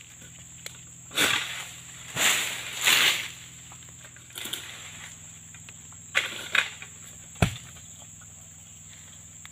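Oil palm being harvested with a long-handled pole sickle: the blade scrapes and rustles through the palm fronds in several bursts, then a single heavy thud about seven seconds in as a cut fruit bunch hits the ground. A steady high insect buzz runs underneath.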